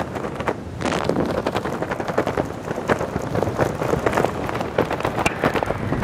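Airflow buffeting a helmet-mounted camera's microphone under an open parachute: gusty rushing with rapid, irregular crackles. It dips sharply at the start and picks up again about a second in.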